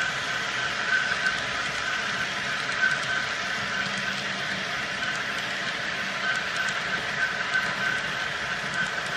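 HO-scale model train running along the track: a steady rolling and motor noise with a faint high whine that pulses on and off, and light clicks from the wheels.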